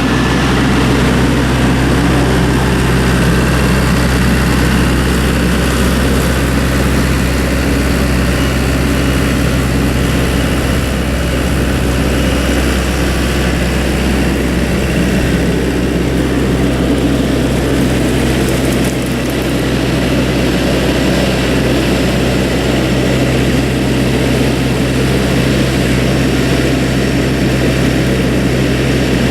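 Skid steer engine running steadily, a constant low engine hum with a slight dip about nineteen seconds in.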